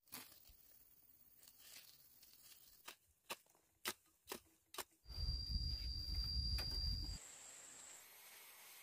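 A hoe chopping into dry soil, about five sharp strikes, followed by a louder low rumble with a thin steady high whine for about two seconds.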